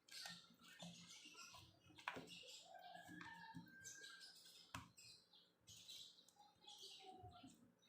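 Close-miked chewing and mouth sounds of someone eating french fries: soft crackly chewing with a few sharp clicks and short squeaky noises.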